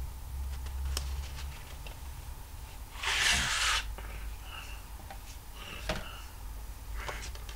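A plastic DVD case being handled: faint clicks and rubbing, with one louder rustling rush about three seconds in as the case is swung up close to the microphone.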